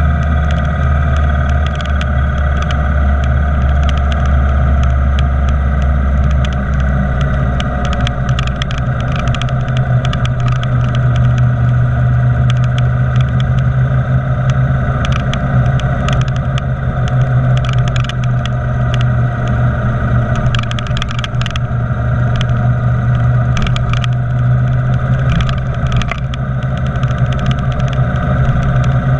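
Motorcycle engine running steadily while riding in traffic, under constant wind and road noise. The engine note steps up about seven seconds in.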